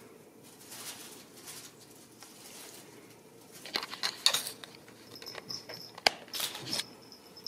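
A toy ball landing and rolling on a rug, with kittens scrabbling after it: light rustling at first, then a burst of clicks and pattering about four seconds in and one sharp tap near the end. A thin high steady tone sounds over the last two seconds.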